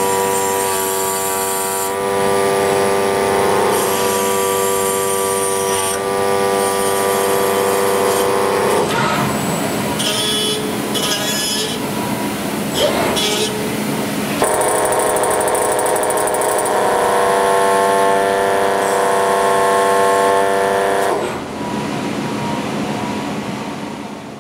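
High-speed deburring spindles running with a steady whine of several tones that shifts every couple of seconds as the robot arm works the metal part against the cutters. Through the middle stretch the whine gives way to a rougher scraping, cutting noise. The sound fades near the end.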